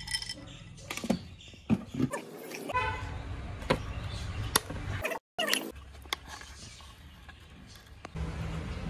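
Scattered metallic clicks and knocks of hand tools working on a small brush-cutter engine that is being taken apart, with a few short squeaky tones among them.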